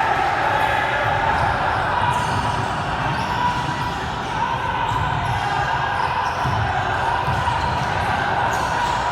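Basketball game in a gym: the ball bouncing on the court over a steady din of crowd chatter.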